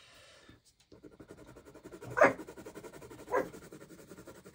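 A dog making two short vocal sounds, about two and three and a half seconds in, the first the louder, over a faint, fast, even rasping.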